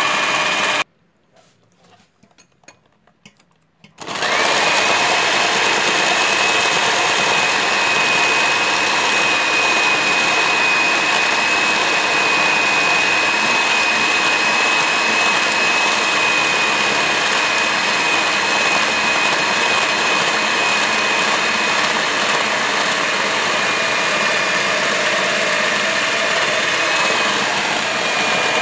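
Electric hand mixer whipping egg whites for Italian meringue, its motor running with a steady high whine. It cuts out for about three seconds near the start, then runs on steadily while hot sugar syrup is poured in.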